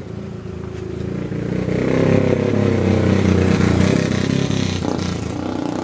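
A motor vehicle's engine running close by, growing louder to its loudest in the middle and then fading, as it passes.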